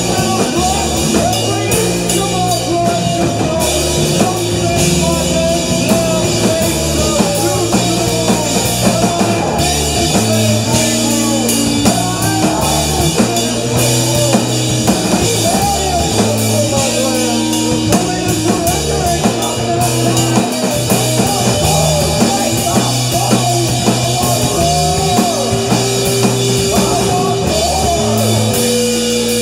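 Live rock band playing: drum kit, electric bass, electric guitar and a singer's vocals. The bass line moves in steps between held notes under steady drumming and cymbals.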